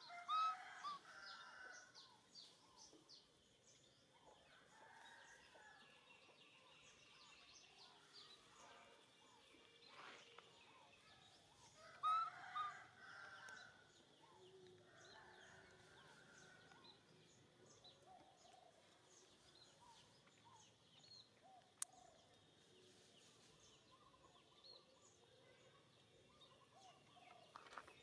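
Faint outdoor ambience of many small bird chirps throughout, with two brief clusters of louder, short rising and falling animal calls, one about a second in and one around twelve seconds.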